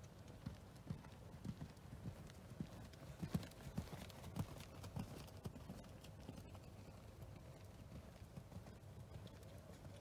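A horse cantering on a sand arena: dull hoofbeats on the soft footing, loudest in the middle as the horse passes close, then fading as it moves away.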